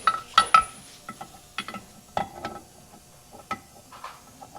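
Irregular metal-on-metal taps and clinks, about nine in all with a short ring after each, the two loudest coming close together just after the start: steel tools tapping at a part to be driven out of an Oliver 77 tractor's PTO assembly.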